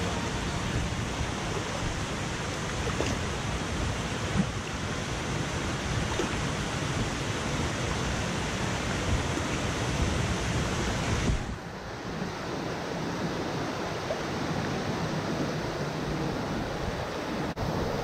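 Steady rushing of a waterfall. About eleven and a half seconds in the sound changes abruptly to a quieter, duller rush, and it breaks off for an instant near the end.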